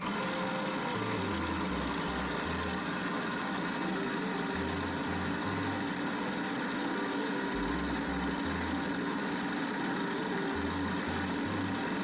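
Motor-driven shaker mechanism of a prototype laboratory shaker-incubator running: a steady mechanical hum over an even hiss, which starts suddenly at the outset.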